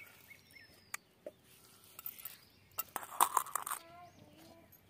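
A hen clucking in a rural yard, with small birds chirping and a few sharp clicks. The loudest burst of short sharp sounds comes about three seconds in.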